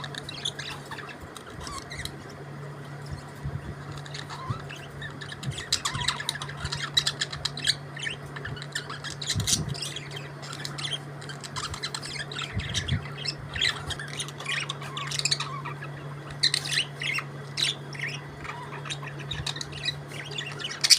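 Budgerigars chirping and warbling, a busy stream of short high chirps and squawks. A steady low hum runs underneath, and there are a couple of brief low knocks near the middle.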